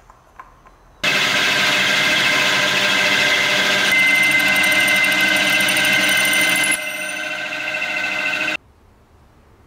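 Drill press running with a long twist drill bit boring into the end of an old wooden handle held in a machine vise, a steady motor hum with the cutting noise of the bit in the wood. It starts abruptly about a second in, gets a little quieter near the end and cuts off suddenly.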